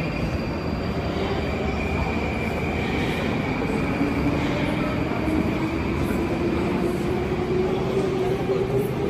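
Metro train running on the station track, a steady rumble with a motor whine that rises slowly in pitch as the train speeds up, and a faint high steady tone above it.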